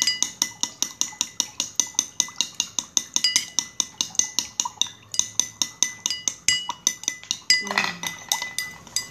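A stirrer clinking rapidly and evenly against the inside of a glass, about five or six strikes a second, the glass ringing, while a gel-forming agent is stirred into water to blend it.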